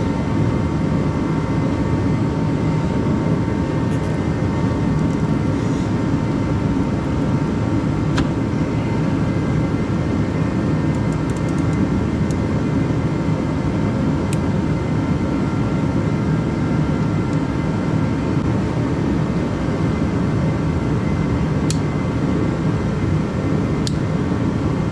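A steady machine drone, an even whir with a constant tone in it, with a few light clicks about 8, 14, 22 and 24 seconds in.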